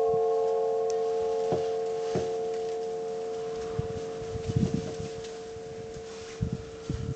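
Russian Orthodox church bells ringing out after the last strokes of a trezvon peal: several steady bell tones slowly fading away. A few dull low thumps sound in the second half.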